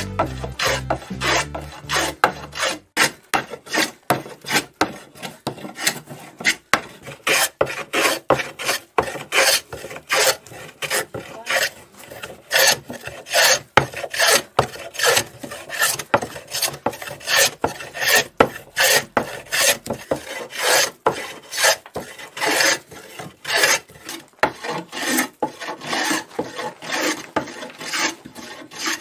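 Hand plane shaving a wooden blank on a workbench, in quick repeated push strokes that scrape steadily one after another.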